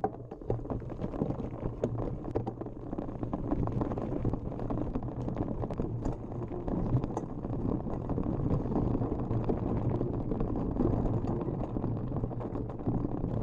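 Mountain bike riding downhill over a rough dirt trail: a continuous rumble of tyres on the ground, with a constant clatter of small rattles and knocks from the bike jolting over the surface.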